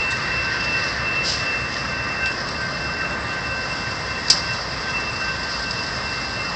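Steady noise of a train at a street crossing: a low rumble and hiss with a thin, steady high-pitched whine, and a single sharp tick about four seconds in.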